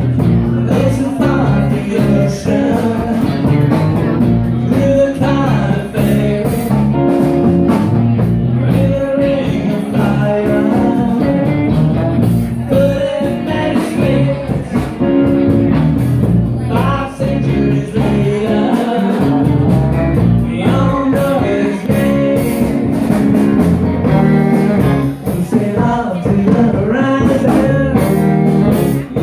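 Live rock band playing a long stretch of the song at a steady, full level, with guitar prominent.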